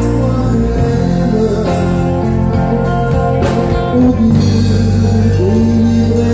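Live band music: electric guitars over drums and congas, with a flute carrying the melody.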